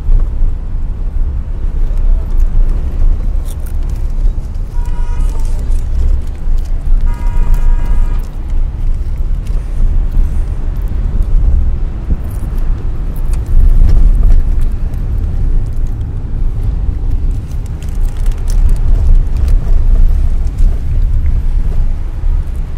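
Steady low rumble and road noise of a moving car heard from inside. Two brief horn toots sound about five and seven seconds in.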